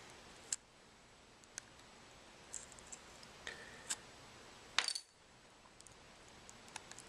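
Faint scattered clicks and small snaps as a razor blade pries the cracked front glass of a Samsung Galaxy S3 off the phone, with a louder cluster of clicks about two-thirds through.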